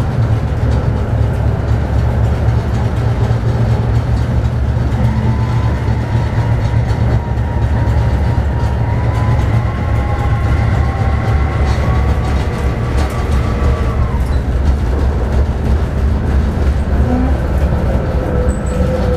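Inside a Tatra T3 tram running along the track: a steady low rumble and hum from the wheels and motors. A higher whine rises gently through the middle and fades, and there are a few light clicks.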